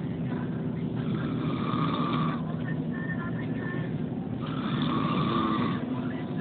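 Motorcycle engine running steadily, its exhaust rumbling at an even pitch.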